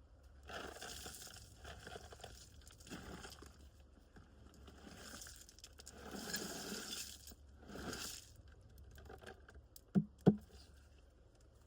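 Rocks being dumped and scraped onto a gravel driveway: several rattling, crunching pours, then two sharp knocks about ten seconds in.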